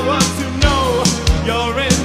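Background music: an upbeat pop-rock song with a singing voice over a steady drum beat and bass.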